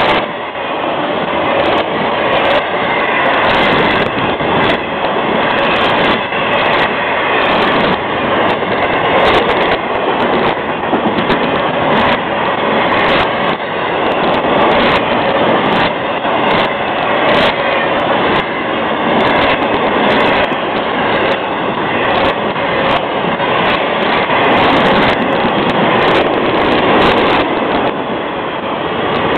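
Loud steady rumble of a long Florida East Coast Railway intermodal freight train's cars rolling past on the rails, with frequent sharp clicks and clanks from the wheels.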